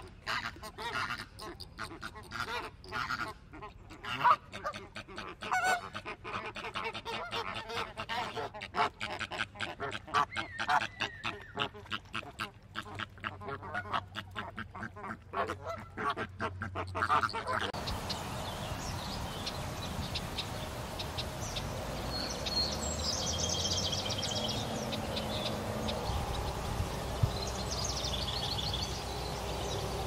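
Ducks quacking with goose-like honks, a dense run of short calls. About seventeen seconds in, this gives way abruptly to a steady wetland background with a few faint, high bird chirps.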